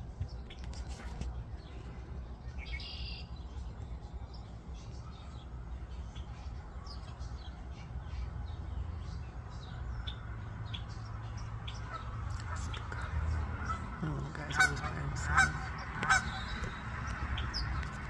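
Nine-day-old chicks peeping softly and repeatedly over a steady low rumble of a man snoring. A little after two-thirds of the way through come three louder honk-like sounds in quick succession.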